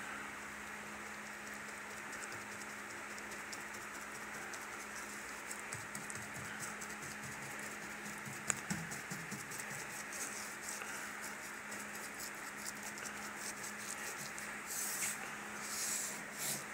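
Paintbrush working paint onto wooden door panels and rope moulding: faint irregular ticks of brush strokes over a steady hiss and low hum, with a few louder swishes near the end.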